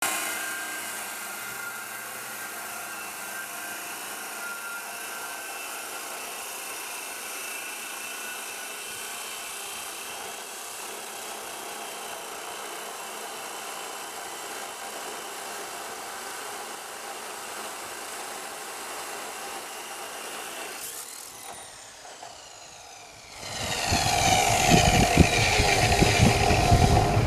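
Abrasive chop saw cutting through a steel beam: a steady grinding whine from the cut-off wheel in the steel. About 21 seconds in the cut ends and the motor winds down with a falling whine. A louder noise follows in the last few seconds.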